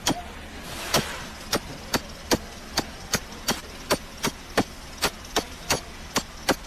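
Steady hammering: sharp, ringing strikes at about two and a half a second, the pace picking up after the first stroke.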